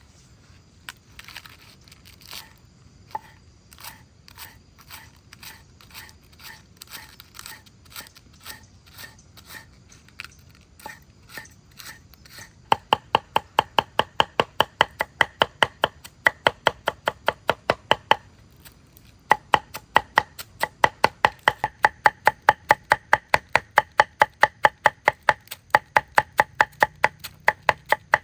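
Rhythmic chopping with a blade on a board, first in softer strokes about one and a half a second. About halfway through it turns to louder, faster strokes about three a second, breaks off for a moment, then carries on.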